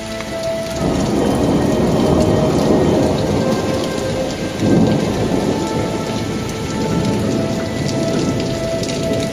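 Thunderstorm sound effect: steady rain with rolling thunder that swells in about a second in and again about halfway through.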